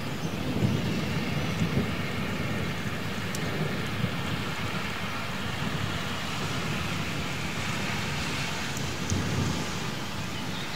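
Steady rain falling through a thunderstorm, with a low rolling thunder rumble underneath that swells at the start and again about nine seconds in. A few sharp ticks of drops land close by.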